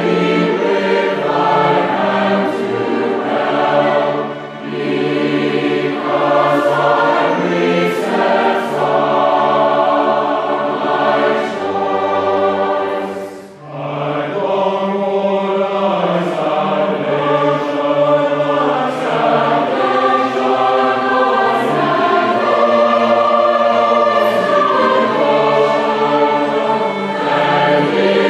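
A choir singing a slow hymn in held chords, with a brief break about halfway through.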